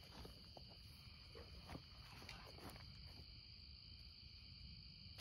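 Faint night insect chorus, a steady high-pitched trill, with a few soft ticks and rustles.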